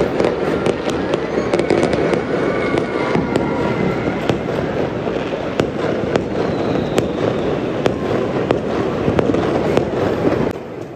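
New Year fireworks going off over the city: a continuous dense rumble of bursts with many sharp cracks through it, easing off shortly before the end.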